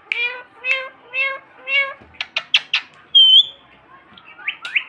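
Pet parrot calling: four short, evenly spaced calls in the first two seconds, then a few sharp clicks, a brief high whistle (the loudest sound), and quick rising squawks near the end.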